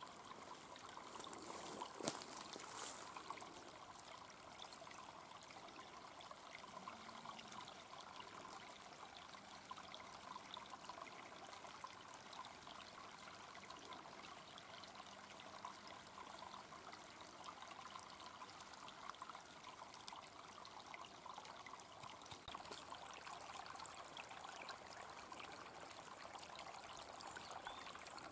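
Shallow, clear forest brook trickling over stones and twigs: a faint, steady babble of water. A single sharp click about two seconds in.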